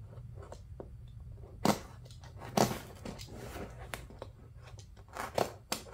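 Stitching threads on a vinyl car seat cover snapping one by one as a box cutter with a ground-down serrated blade pops the seam, the vinyl being pulled apart by hand. Scattered sharp snaps, the loudest about one and a half and two and a half seconds in, and a quick run of them near the end.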